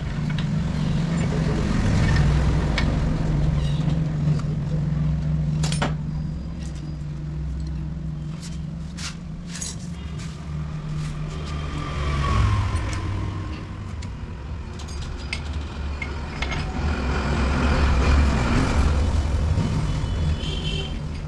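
A motor running with a steady low hum that drops in pitch about twelve seconds in, with scattered clicks and knocks.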